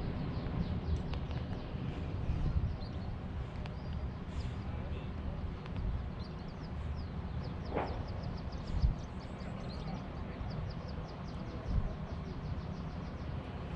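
A hiker's footsteps and trekking-pole taps on stone paving over a steady low rumble of movement on the microphone, with a couple of heavier thuds. A rapid run of high chirps comes in over the last few seconds.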